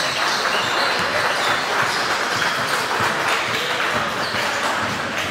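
Spectators in a gym clapping and cheering, with voices mixed into the crowd noise.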